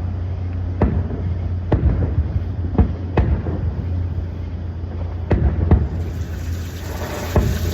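Fireworks going off: about seven sharp bangs at uneven intervals, some in close pairs, over an air conditioner's steady low hum.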